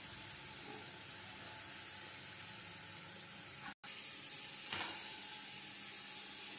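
Sliced onions frying in oil in a metal pot, a steady, even sizzle. It drops out for an instant a little past halfway and then carries on, with one light knock about a second later.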